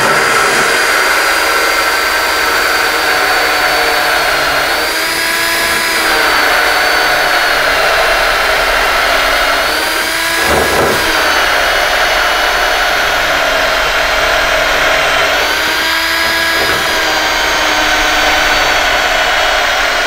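Cordless drill spinning a 1-inch hole saw into the edge of a wooden door to bore the latch hole. A steady motor whine that sags in pitch and recovers about three times as the bit bites and the motor is loaded.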